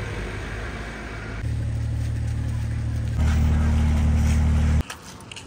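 Low, steady outdoor rumble of street ambience. It grows louder in two sudden steps and cuts off sharply near the end.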